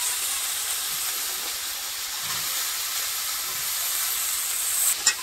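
Tomato, green chillies and whole spices frying in hot oil in a kadai, a steady high sizzling hiss. A single sharp knock near the end.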